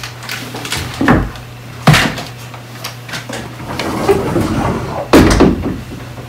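Rummaging in a closet: a few sharp knocks and clatters of things being moved on the shelves, about a second in, near two seconds and again around five seconds, over a faint steady low hum.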